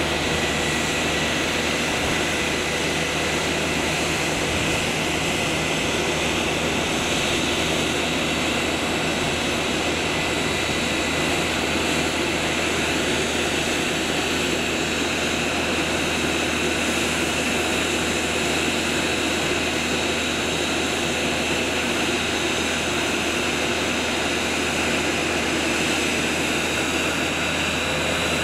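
Airbus A320neo jet engines running steadily, a constant rushing noise with a high whine over it.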